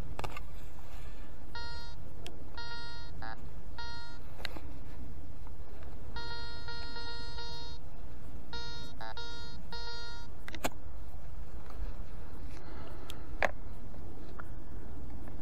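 Garrett ACE 200i metal detector sounding target tones through its repaired speaker: short beeps in groups as the search coil sweeps over targets, with one longer held tone about six seconds in and two warbling tones among them. A couple of sharp clicks follow later, over a steady low rumble.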